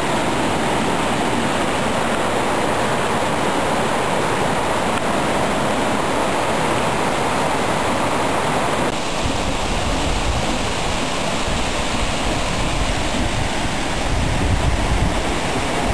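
Steady rushing of a waterfall and a mountain creek over rocks. About nine seconds in, a low rumble joins the rush, louder near the end.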